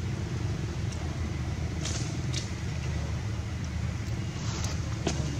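A steady low rumble of outdoor background noise, with a few faint clicks about two seconds in and again near the end.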